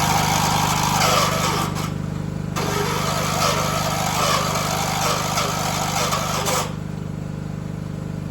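Small lawn tractor engine, the 1976 John Deere 300's, running steadily at idle. A louder rushing noise comes and goes over it and drops away about a second and a half before the end.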